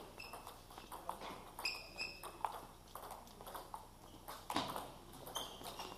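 Table tennis rally: the ball clicking irregularly off bats and table, with one harder hit about four and a half seconds in. A few short, high squeaks sound in between.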